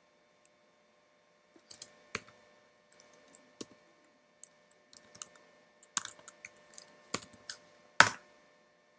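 Computer keyboard typing: irregular key clicks starting a couple of seconds in, with the loudest keystroke near the end.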